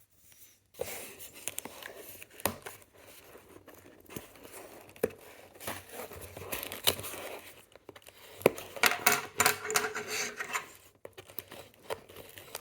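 A knife slitting packing tape on a cardboard box, with scraping, tearing and the crinkle of packaging being handled, broken by scattered small clicks and knocks.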